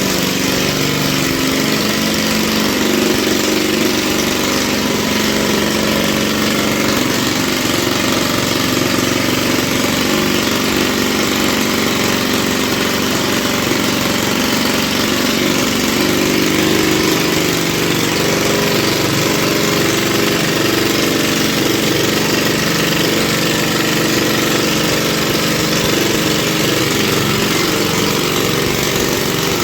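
Small 75cc two-stroke petrol engine running steadily at an even speed.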